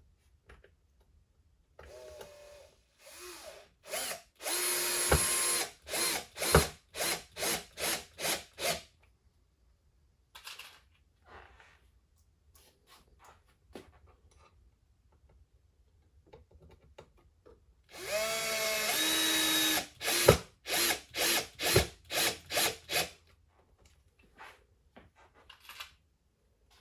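Power drill driving screws into the wooden tabletop, twice: each time a steady run of the motor, then a string of short trigger bursts as the screw is seated.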